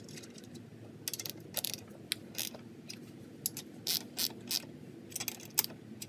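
Socket ratchet wrench clicking in short irregular bursts as it tightens the axle nut, snugging it down to hold the freshly set chain tension.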